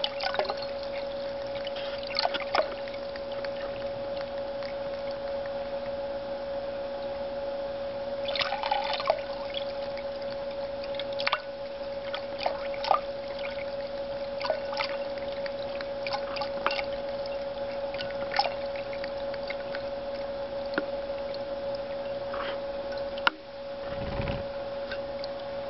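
Thirsty Cat "Screech Owl" fountain running: a steady pump hum under a stream of water splashing from the owl spout into the basin, with a cat's tongue lapping at the stream in irregular little clicks and splashes. Near the end a sharp knock and a brief low rumble.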